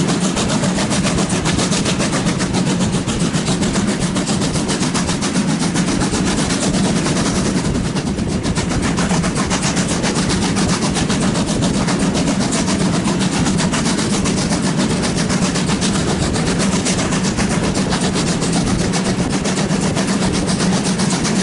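DR class 41 two-cylinder steam locomotive 41 1144 working a train, its exhaust beating in a rapid, even rhythm over the steady run of wheels on rail. Heard close up from an open window of the first coach behind the tender.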